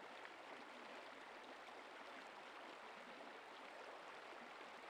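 Shallow creek water rippling over rocks in a riffle, a faint, steady rush.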